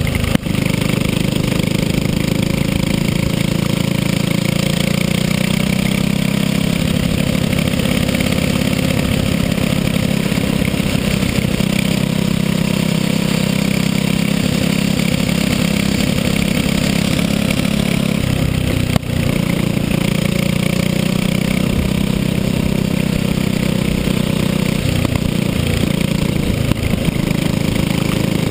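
Racing go-kart's single-cylinder engine running steadily at race speed, its pitch wavering a little through the corners. Two brief sharp knocks, one near the start and one about two-thirds of the way through.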